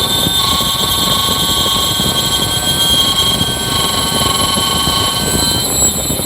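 Lathe running with its leadscrew driven by a microstepping stepper motor: a steady rumbling machine noise with several high, steady whine tones over it. The whine cuts out shortly before the end while the running noise carries on.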